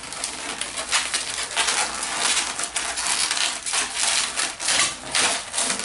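Inflated latex 260 modelling balloons rubbing against each other as one is twisted and wrapped into a pinch twist: a continuous crackly rubbing with many short scrapes.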